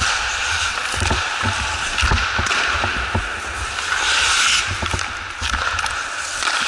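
Ice hockey rink sounds: skate blades scraping across the ice under a steady hiss, with irregular sharp clacks of sticks and pucks and dull thuds, many times over.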